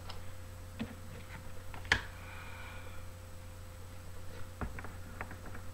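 Tarot cards being shuffled by hand: a few scattered soft clicks and taps of the cards, the sharpest about two seconds in.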